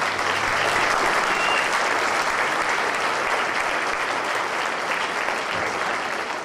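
Audience applauding, starting suddenly and slowly dying down near the end.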